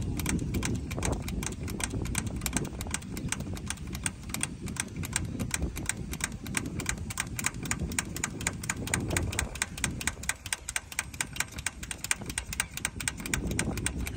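Swaraj 963 FE tractor's diesel engine running, a fast, even clicking over a low rumble. Its fuel filters have just been changed after dirt in them starved the engine of diesel.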